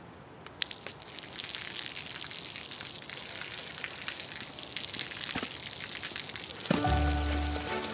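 Street ambience: a steady hiss of city noise with scattered small clicks and crackles. Near the end, music comes in with low bass notes and sustained higher tones.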